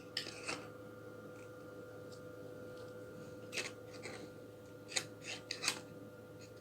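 Small cough syrup bottles being handled: scattered short clicks and scrapes, a few in quick succession in the second half, over a faint steady hum.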